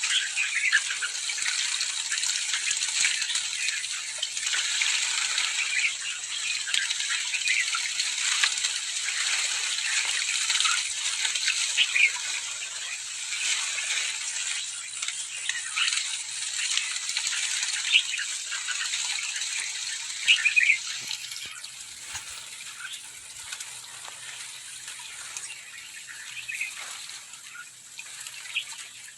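A large flock of sooty-headed bulbuls chattering together in a dense, continuous din of short chirps, with splashing and wing-fluttering as they bathe. The din drops noticeably about two-thirds of the way through.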